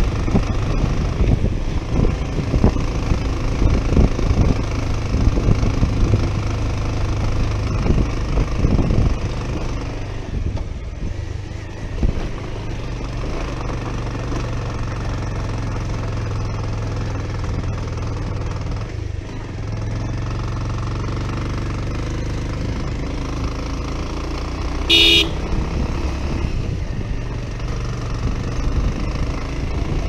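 Bajaj Pulsar 150 motorcycle's single-cylinder engine running steadily under way, with wind buffeting the microphone. A single short horn beep sounds near the end.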